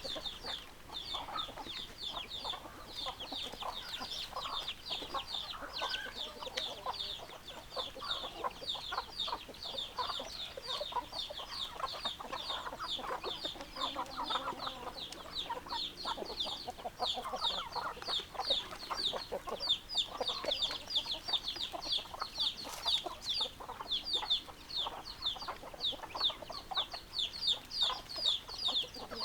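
A flock of chickens clucking, with a constant fast, high-pitched peeping of many short calls running under the clucks.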